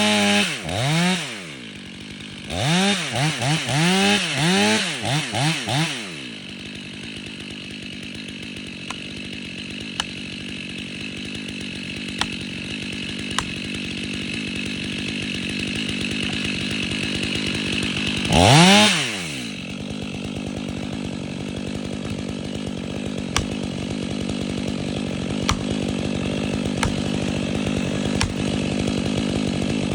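Two-stroke chainsaw idling, blipped to high revs and let drop again in short bursts: once at the start, a quick string of about six revs a few seconds in, and once more about two-thirds of the way through.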